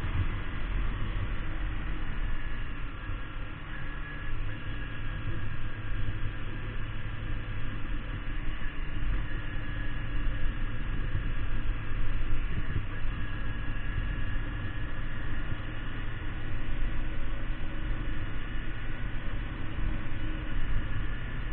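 Kawasaki Ninja 250 motorcycle's parallel-twin engine running at a steady engine speed while riding, mixed with a heavy rush of wind noise.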